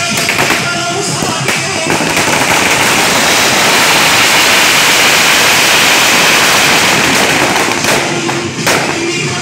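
A string of firecrackers bursting in a rapid, continuous crackle for about six seconds, starting about two seconds in. Music plays under it and is heard clearly before the crackling starts and again near the end.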